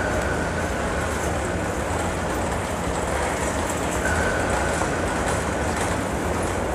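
Steady low rumble and hiss of a moving vehicle, with a faint high tone about four seconds in that lasts about a second.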